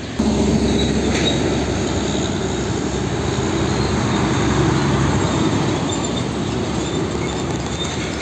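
Diesel tractor-trailer hauling a shipping container passes close, its engine running with a heavy rumble and rattle from the trailer, under a faint high squeal. The sound starts suddenly and eases slightly as the truck pulls away.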